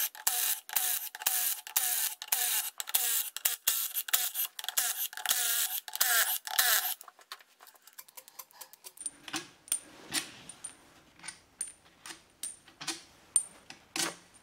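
Cordless power tool running in a quick series of short bursts, spinning out the gearbox case bolts. After about seven seconds it gives way to light metallic clinking of the loose steel bolts being picked out and gathered in a gloved hand.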